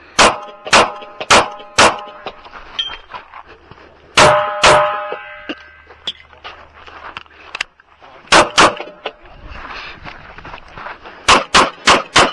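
A 9mm Kahr CM-9 pistol firing about a dozen shots in quick strings: four shots, a pair, another pair about four seconds later, then a fast string of four near the end. Steel targets ring after hits in the first half.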